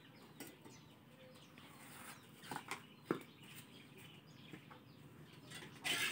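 Faint scattered knocks and clicks of sticks and utensils at a clay charcoal stove, with one sharp click about three seconds in. Near the end comes a louder brief scrape, a spatula moved in a wok.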